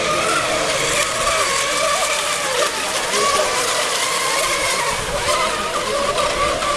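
Several RC racing boat engines, small two-stroke model combustion engines, running flat out at once as the boats race around the buoys. They make a high whine whose pitch wavers and shifts as the boats turn and pass.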